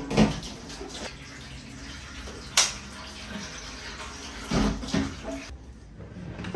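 Water running from a kitchen tap, an even hiss with a sharp click partway through and a couple of knocks, then shut off near the end.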